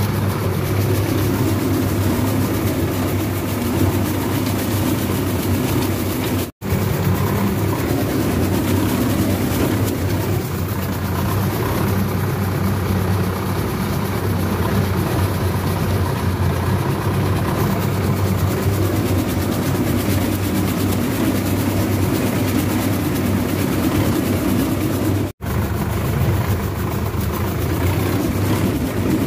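Preet 6049 60 HP tractor's diesel engine running steadily under load in second high gear while pulling a PTO-driven cutter through paddy stubble. The sound cuts out for a split second twice, about six and a half and twenty-five seconds in.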